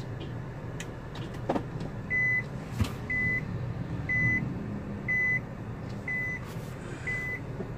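Electronic warning beeper giving short, even, high beeps about once a second, starting about two seconds in, over the low rumble of a slow-moving car cabin.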